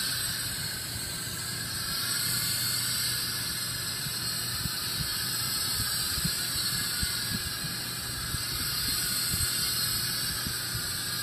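Steady hiss of lifting gas rushing through a hose into an upper-air weather balloon as it is inflated.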